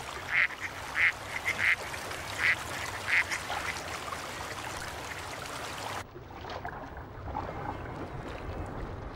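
Ducks quacking, about six short calls in the first three and a half seconds. About six seconds in the sound cuts abruptly to a dull, muffled ambience with the high end gone.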